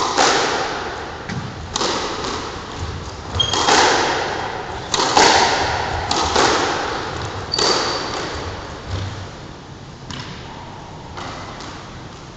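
Squash rally: the ball struck by racquets and smacking off the court walls, sharp hits about every second, each followed by a hall echo. Now and then a brief high squeak of shoes on the court floor. The hits grow weaker near the end as the rally stops.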